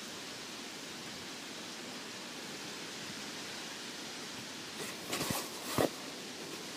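Steady, even hiss of outdoor background noise, broken about five seconds in by a few short rustling bumps, the loudest just before six seconds.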